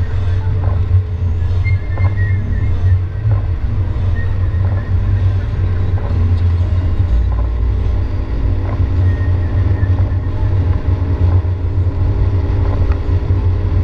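Car cabin noise while driving in heavy rain: a steady low rumble of road and engine, with scattered faint taps of rain on the windshield.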